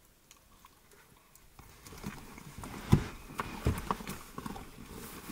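Quiet at first, then from about two seconds in, irregular light clicks and two dull knocks a little under a second apart.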